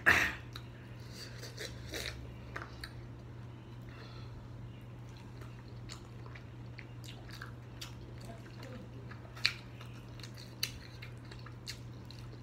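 A person chewing and biting into sauced chicken wings close to the microphone, with scattered short mouth clicks and smacks and a loud sharp sound right at the start. A steady low hum runs underneath.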